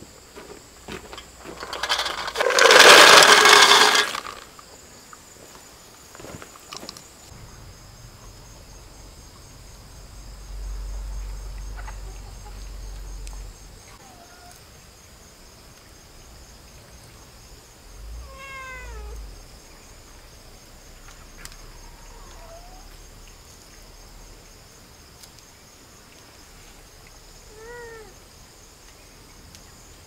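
A loud, noisy rush about two to four seconds in. Later come a few short cries from a pet, each falling in pitch, over a faint steady buzz of insects.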